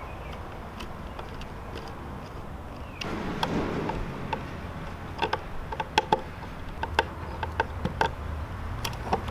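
Screwdriver working the screw terminals of a Wanderer solar charge controller while a red battery wire is pushed into the terminal: a rustle of the wire, then a run of small sharp clicks and scrapes from the screw turning, thicker in the second half.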